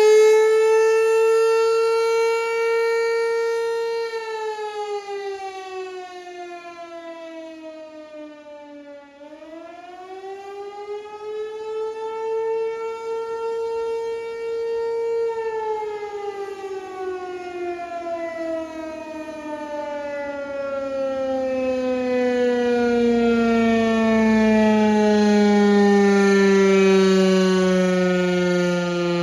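Outdoor warning siren sounding a single tone. It holds its pitch, sags lower and climbs back about nine seconds in, then winds down slowly through the second half, its pitch falling steadily.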